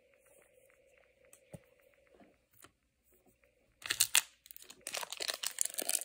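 A foil trading-card pack wrapper being torn open and crinkled. After a few faint clicks it starts loud about four seconds in, breaks off for a moment and then keeps crackling.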